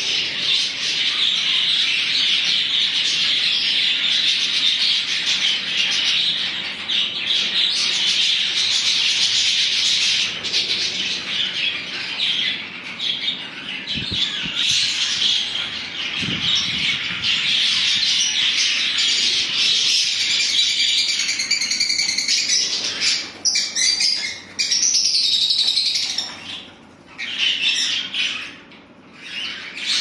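A crowded aviary of budgerigars and lovebirds chattering and squawking: a dense, unbroken chorus of high chirps that turns patchier, with short lulls, in the last several seconds.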